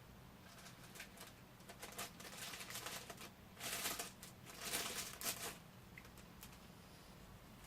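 Thin protective plastic wrapping on a figure crinkling and crackling as it is pulled off by hand, in scattered clicks with two longer rustles around the middle.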